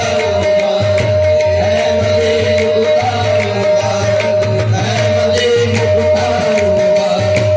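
Qawwali music with tabla playing a steady beat under a long held note and a wavering melody.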